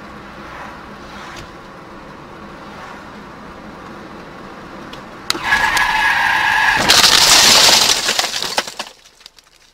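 Car striking a cow: a loud crash with the windshield cracking and glass breaking, about seven seconds in, fading out by near the end. Before it, steady low road noise inside the car, then about five seconds in a sudden loud steady tone lasting about a second and a half.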